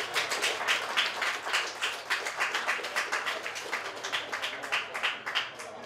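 Audience applauding: many hands clapping densely, thinning out and dying away near the end.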